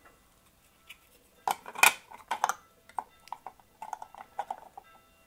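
Black plastic cover of a Proxxon TBS 12 drill press head being fitted onto its aluminium housing, clicking and knocking against the metal in a string of short taps, the loudest about two seconds in.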